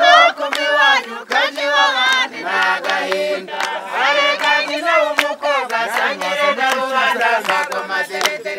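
Men and women singing a traditional Rwandan chant together, with hand-clapping, as a bride is carried in a basket litter in a wedding procession.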